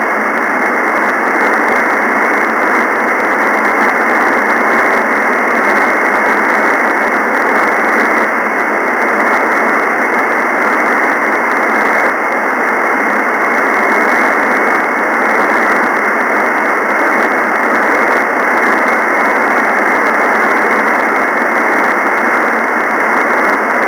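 Steady hiss from a software-defined radio receiver's single-sideband audio, with no station tuned in on the satellite downlink. The hiss is flat and unchanging, cut off sharply above and below the receiver's voice passband.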